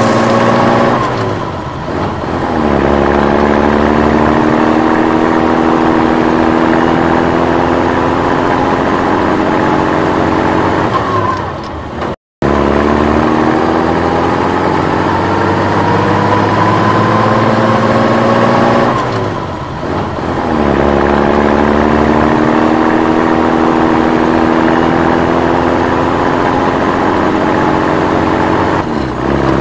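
Vehicle engine sound, revving up quickly and then slowly winding down in pitch, repeating every eight seconds or so like a loop, with a sudden brief dropout about twelve seconds in.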